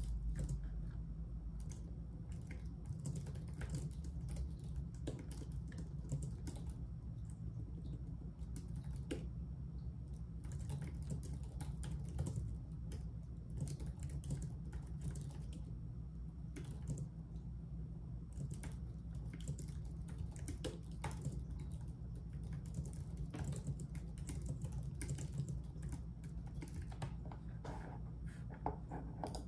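Typing on a computer keyboard: an irregular, continuous run of quick key clicks over a steady low hum.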